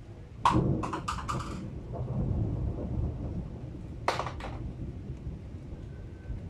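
Thunder: a series of sharp cracks about half a second in, then a low rumble, and a second short burst of cracks about four seconds in.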